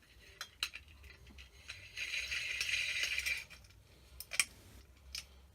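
Small metal ceiling-fan parts being handled as light-kit wires are fed through the switch cap: scattered light clicks and clinks, a rattling rustle for about a second and a half starting about two seconds in, and one sharper click near the end.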